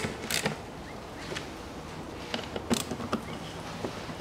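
A few separate sharp clicks of a screwdriver working the screws of a plastic air-filter housing cover, with the tool moving from one screw to the next.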